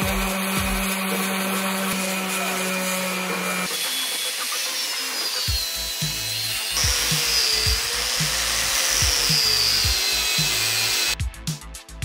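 Electric sander running with a steady hum. About a third of the way in it gives way to an angle grinder grinding a steel plate, its whine wavering up and down in pitch as it bites. A music beat runs under the grinding.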